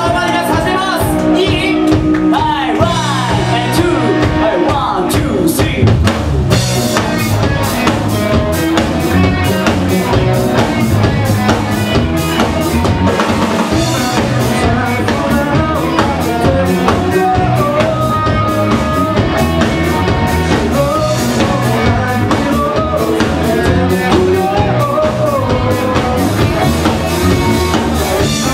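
Live rock band playing: electric guitars, bass and a drum kit keeping a steady beat.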